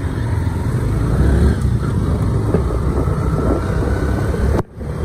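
Motorcycle running along the road with a steady low rumble of engine and wind on the microphone. The sound drops out abruptly for a moment near the end.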